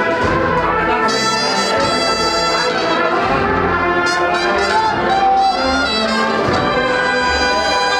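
Agrupación musical, a Spanish processional band of cornets, trumpets and trombones, playing a march with sustained brass chords.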